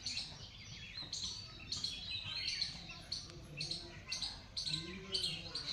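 Many small birds chirping and calling over one another in a morning chorus: dense, short, high chirps repeating throughout.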